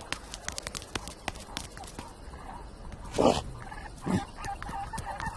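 Cartoon sound effects: a run of quick, light clicks in the first two seconds, then two short animal grunts about three and four seconds in.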